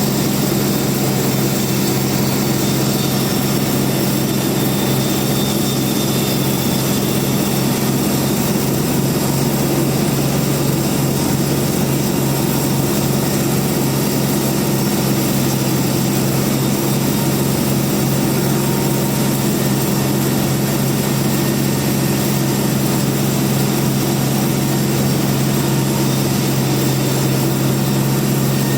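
Band sawmill running steadily: a constant, loud machine drone with a strong low hum and an even hiss over it, with no change in pitch or level.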